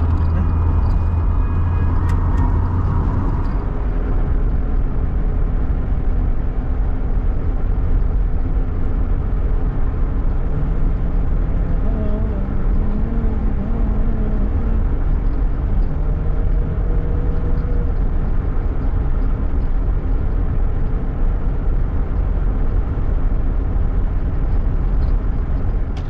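Car driving along a paved road, heard from inside the cabin: a steady, deep rumble of engine and tyre noise.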